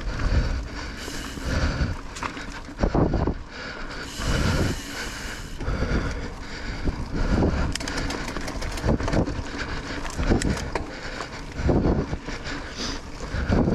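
Mountain bike riding fast along a dirt singletrack, heard from a bike- or rider-mounted camera: a rushing of tyres and wind on the microphone, broken by irregular thumps and knocks as the bike hits bumps and roots.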